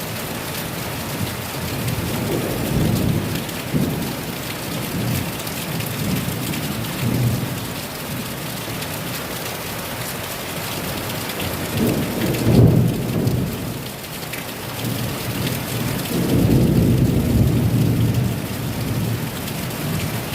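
Heavy rain pouring steadily, with low rumbles of thunder swelling and fading several times. The loudest rumble comes about twelve seconds in, and another long one near the end.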